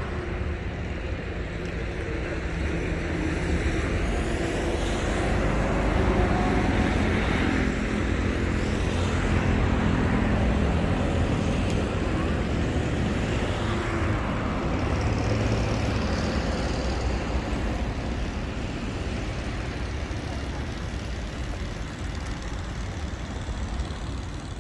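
Road traffic: cars and other vehicles passing steadily. The noise swells to its loudest around the middle and eases off toward the end.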